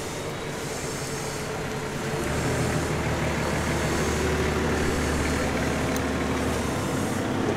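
A heavy vehicle's engine running steadily with a low rumble, which grows louder about two seconds in and stays up.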